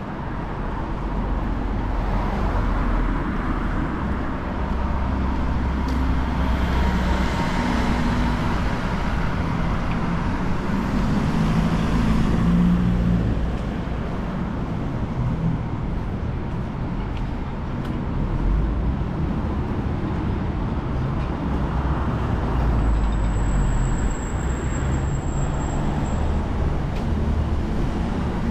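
Road traffic close by: motor vehicle engines running with a steady low drone, swelling around the middle and again later as vehicles pass.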